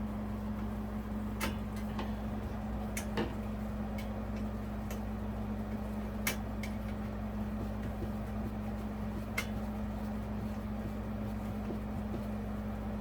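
A handful of light, irregular clicks and taps from small parts being handled, over a steady low electrical hum.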